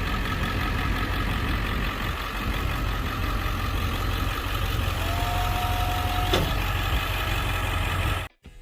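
A motor engine idling steadily, with a brief held high tone about five seconds in; the sound cuts off suddenly just before the end.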